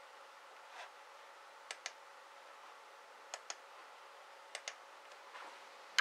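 Computer mouse clicking: four pairs of short sharp clicks spread over a few seconds, over a faint steady hum.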